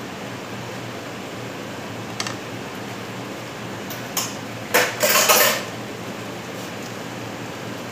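Kitchen clatter of dishes and utensils being handled: a few light knocks, then a louder burst of rattling about five seconds in. Under it runs the steady hum of a kitchen exhaust fan.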